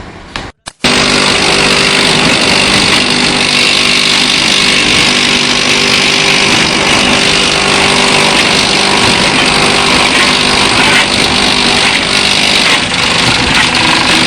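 Fine-stone concrete pump running: a loud, steady mechanical drone with a constant hum under a dense hiss. It starts abruptly after a brief dropout about a second in.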